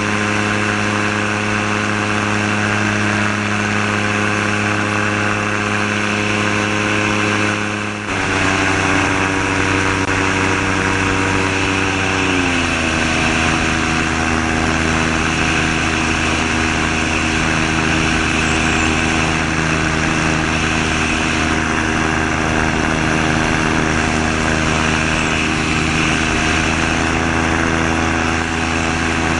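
Gyrocopter's Subaru EA-81 flat-four engine driving its propeller through an NSI reduction gearbox in flight: a steady drone with air rushing past. About eight seconds in the sound changes abruptly, and around twelve seconds the engine note glides down and holds at a lower pitch.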